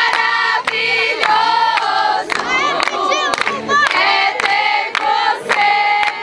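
A group of voices singing a chant together loudly, with hand claps through it; the singing is off-key.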